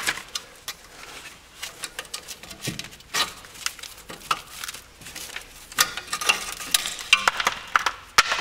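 Metal tools clicking and scraping against a wheel hub as a screwdriver and circlip pliers work the front wheel bearing's retaining circlip out of its groove. There are irregular sharp clicks throughout, coming thicker in the second half.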